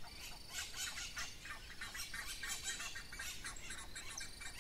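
Birds chirping and calling in a busy chatter of many short, quick notes, with a faint thin steady high tone behind them.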